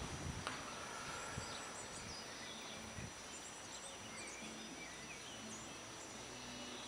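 Open-air background noise with small birds chirping in short, scattered calls. A single sharp click comes about half a second in.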